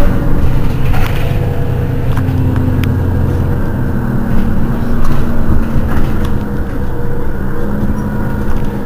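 Diesel engine of a Mercedes-Benz Citaro city bus idling steadily at a standstill, a low hum that shifts slightly in pitch, with a few light clicks.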